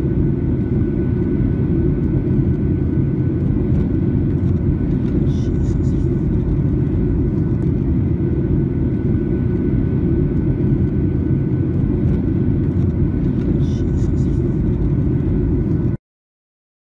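Steady low roar of a jet airliner cabin in flight, engine and airflow noise, with faint steady hum tones above it. It stops suddenly near the end.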